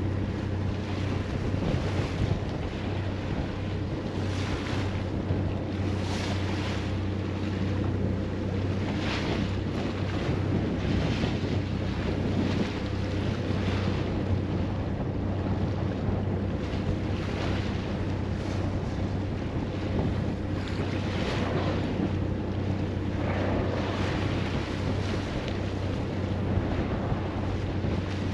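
Boat under way at sea: a steady low engine drone under rushing water along the hull and wind on the microphone, with a swish of water or spray every few seconds.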